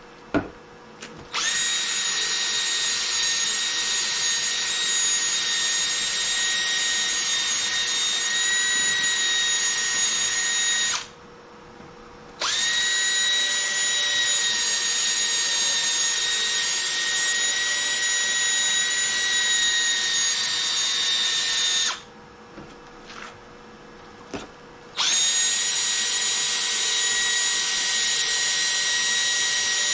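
Cordless drill spinning an 800-grit sanding pad against a plastic headlight lens, a steady whine at constant speed. It runs in three long stretches, stopping twice briefly.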